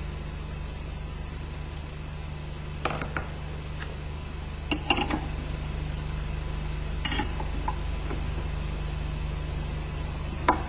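A handful of light metallic clinks from hand tools (screwdriver and spanner) working on the engine's assembly bridge, scattered a second or two apart, over a steady low hum.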